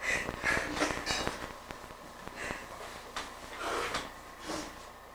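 A teenage boy sobbing: a string of breathy sniffs and wheezy, gasping breaths at uneven spacing, in grief at news of a death.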